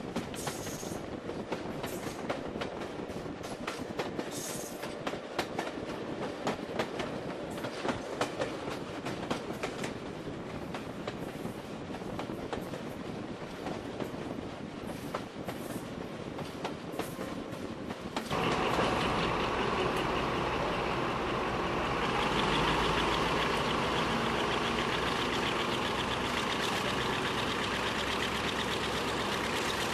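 Train running behind Class 35 Hymek diesel-hydraulic D7076: rumble of wheels on the rails with a scatter of clicks. About two-thirds through, the locomotive's Maybach V16 diesel engine comes in suddenly as it is opened up and takes over as the loudest sound, a steady heavy engine note that rises a little a few seconds later.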